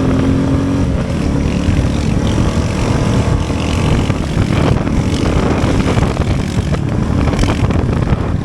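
Vehicle engine running steadily under way, mixed with heavy wind and road noise on the microphone.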